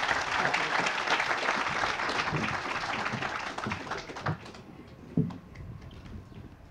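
Audience applauding, dying away about four seconds in, followed by a few scattered light knocks.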